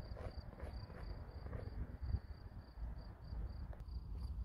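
Faint cricket chirping steadily, short high chirps about three times a second, over a low rumble on the microphone.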